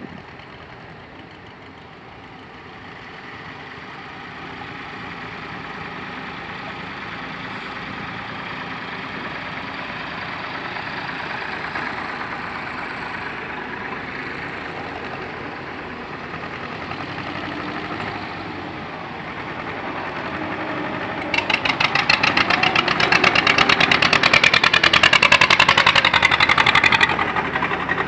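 Engines of slow vehicles driving by: first a steady engine sound grows louder as a vehicle pulling a passenger trailer passes. About three-quarters of the way through, a small homemade mini tractor's engine comes close, much louder, with rapid, even firing beats, then drops away near the end.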